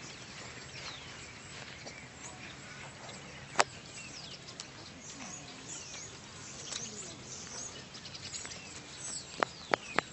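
Small birds chirping, with one sharp click about a third of the way in that is the loudest sound. Quick footsteps on pavement start near the end.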